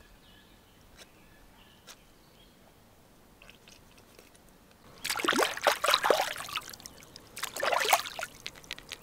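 Lake water splashing and sloshing as a cleaned brown trout is rinsed by hand in the shallows. It comes in two bouts, starting about five seconds in, and is only faint before that.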